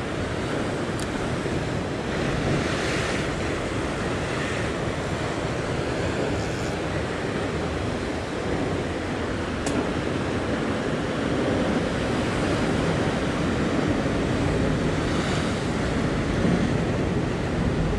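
Ocean surf washing against the rocks below a sea cliff, a steady wash that swells and ebbs, with wind rumbling on the microphone.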